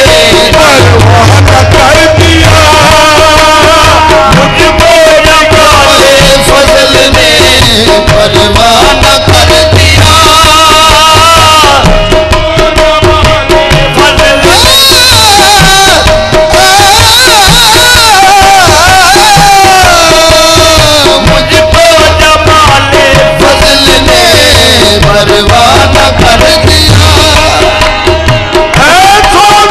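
Qawwali: a man's voice sings ornamented, sliding lines over harmoniums holding a steady drone note, with a drum beat underneath. The recording is very loud.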